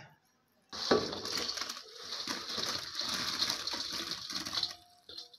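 Fried pakoras tipped from a metal wok into thick, simmering kadhi: a run of wet plops and splashes. It starts about a second in and stops shortly before the end.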